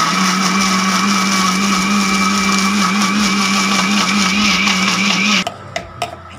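Electric mixer grinder running at full speed, grinding chutney ingredients with oil and no water, a loud steady motor hum that cuts off sharply about five and a half seconds in. A few light clicks follow.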